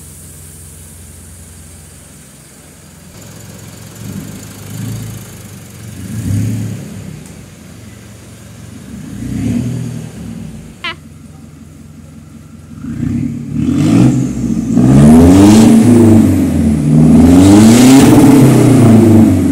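Mitsubishi Triton's 2.4-litre MIVEC turbodiesel, freshly remapped to stage 1, running at idle and blipped three times. Then, from about two-thirds of the way in, it is revved hard twice, each rev held for a second or two before falling back.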